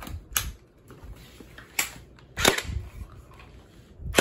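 Electric gel blaster being test-fired after its battery was fitted, with four sharp snaps at uneven intervals.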